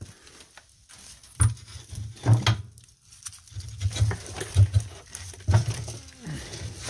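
Irregular dull thumps and knocks, about six of them spread over several seconds, with faint handling noise between.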